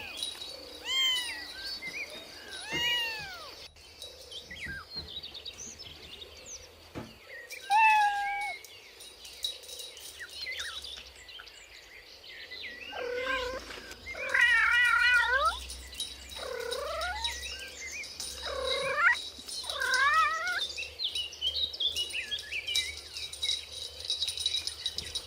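Cats meowing: a string of separate rising-and-falling meows, with several close together about halfway through. Faint high chirping runs behind them in the second half.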